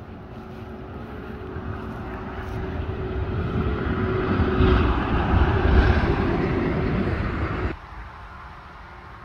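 An engine running under a rushing noise, growing steadily louder for several seconds, then cut off abruptly about three-quarters of the way through, leaving a quieter low hum.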